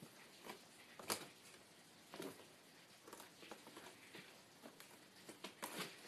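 Kittens' paws and claws scrabbling on a woven basket: faint, irregular scratches and rustles, with a sharper click about a second in and a louder scrape near the end.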